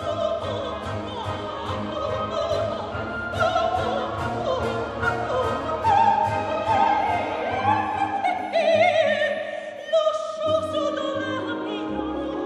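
Operatic soprano singing an aria with wide vibrato over an orchestra playing an even, steady pulse; the voice sustains long high notes near the middle and the end.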